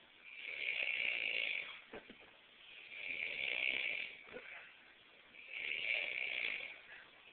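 A person snoring heavily: three long, loud snores about two and a half seconds apart, with quiet breaths and faint clicks between them.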